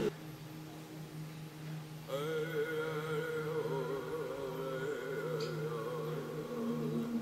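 Background music: a steady low drone, joined about two seconds in by a wavering, slow melody line.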